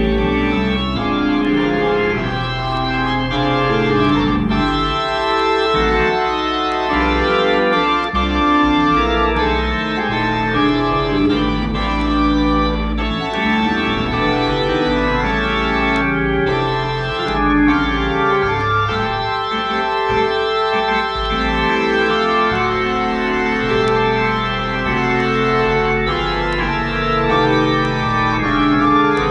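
Organ playing held chords that change every second or so, over a sustained bass line.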